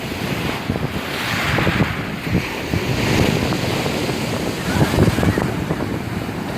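Rough Black Sea waves breaking and washing on the shore, a broad hiss that swells about a second in, with wind buffeting the microphone.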